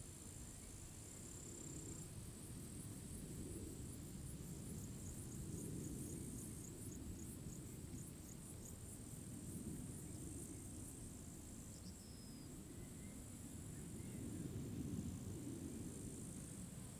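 Crickets chirping in a steady high trill, with a run of quick pulsed chirps at about three a second through the middle, over a faint low rumble.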